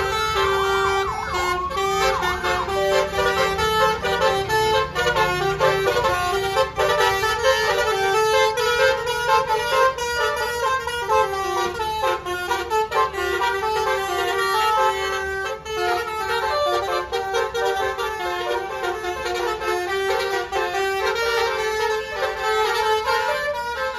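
Basuri telolet horn on an RJB Trans bus playing a melody, its stacked horn tones stepping quickly from note to note, with a wailing siren-like sweep in the first two seconds.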